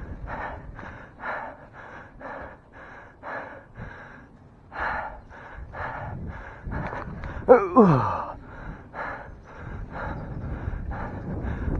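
A cyclist breathing hard and fast from exertion while riding, about two breaths a second. About halfway through, a short sound drops steeply in pitch; it is the loudest moment.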